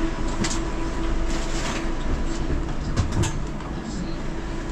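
KLIA Ekspres electric airport train moving along the platform: a steady electric hum and rumble, with a few sharp clattering clicks.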